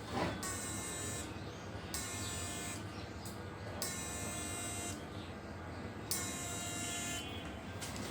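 Analog 12 V to 1200 V electric fishing machine inverter buzzing at full power: a steady low hum, with a high-pitched buzz that switches on and off four times, about every two seconds.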